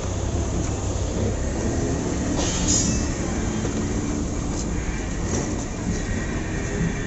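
Steady street background noise: a low rumble of traffic with a hiss over it, and a brief high squeak about two and a half seconds in.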